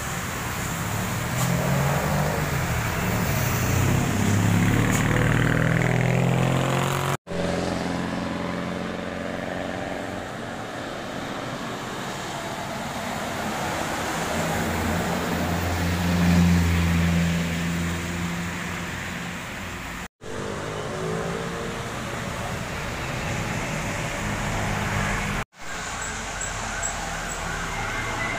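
Road traffic passing on a wet road: car and truck engines over a steady hiss of tyres on wet asphalt, one engine rising in pitch in the first few seconds. A heavy truck passing close is loudest about sixteen seconds in. The sound drops out briefly three times.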